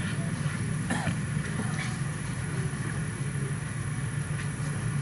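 A steady low hum like an engine running, holding an even level with no speech over it.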